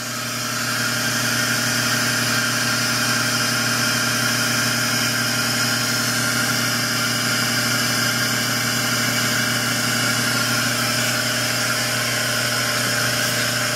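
220 psi Aquatec electric pump running steadily under pressure while hot water sprays full time from the cleaning jet: a steady hum with an even hiss over it.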